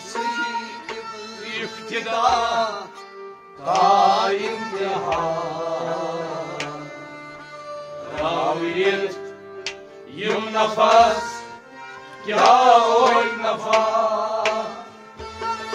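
Kashmiri Sufi devotional music: a wavering melody in long phrases over tabla drumming.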